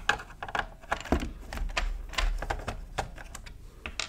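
Irregular clicks and taps of a ZX Spectrum+'s plastic case being handled and lifted open, with small screws set down on a wooden desk.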